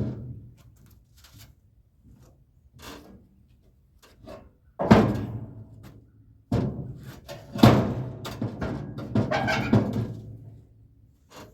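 A series of heavy thuds and knocks, irregularly spaced. The loudest come about five seconds in and again around seven to eight seconds in, each with a short ringing tail.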